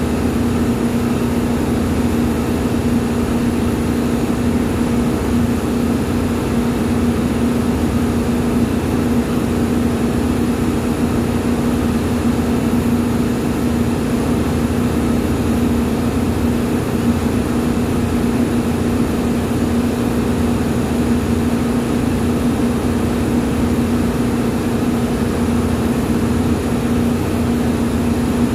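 Steady, loud drone of running machinery with a constant low hum. It does not change throughout and covers any sound of the hand work.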